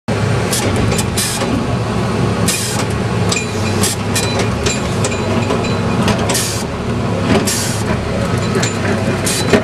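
Freightliner Condor garbage truck's diesel engine running steadily, heard from inside the cab, with repeated short hisses throughout.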